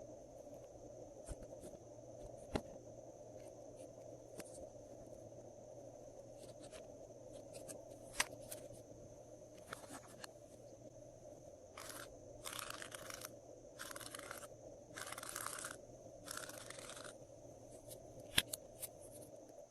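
Glossy slime being worked by hand, with scattered sharp clicks and pops. About two-thirds of the way in come about five short, hissy rubbing passes. A faint steady hum runs underneath.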